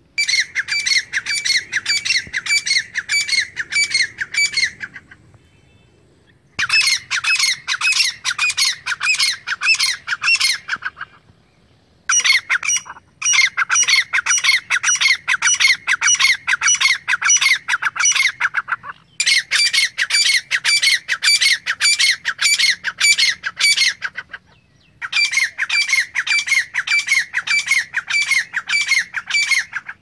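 Female grey francolin calling: bouts of rapid, repeated high squeaky notes, about three a second, each bout lasting about five seconds with short breaks between. This is the female call hunters use to lure francolins.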